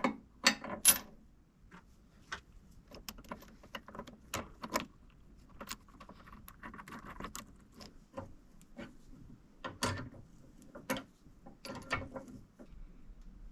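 Scattered metal clinks and knocks of bolts and a wrench as a cross slide vise is bolted down to a drill press table.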